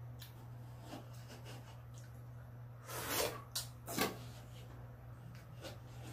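Watermelon being eaten with spoons: a few short, wet eating sounds about three and four seconds in, over a steady low hum.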